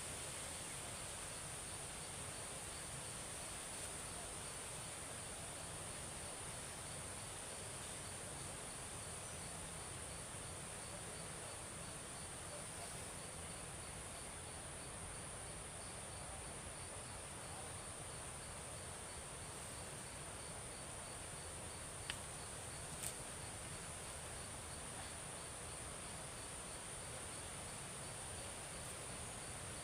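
Steady high-pitched chorus of insects, with a fainter, evenly pulsing call beneath it. Two sharp clicks, about a second apart, about two-thirds of the way through.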